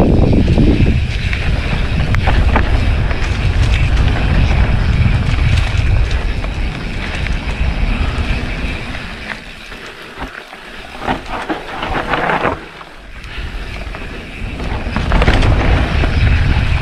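Wind rushes over the microphone of a mountain bike ride on a dirt trail, along with the noise of the tyres and knocks and rattles from the bike over rough ground. About ten seconds in the wind drops for a few seconds, leaving the clicks and knocks, then it rises again near the end.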